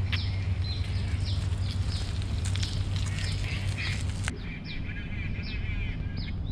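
Birds chirping and calling in the pre-dawn, many short high calls that slide downward and repeat, with a warbling song about halfway through, over a steady low hum.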